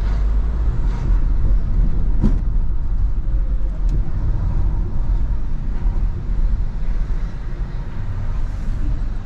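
Cabin sound of a BMW 218i Active Tourer with a 1.5-litre petrol engine driving slowly in city traffic: a steady low rumble of engine and tyres, with a single sharp knock a little over two seconds in.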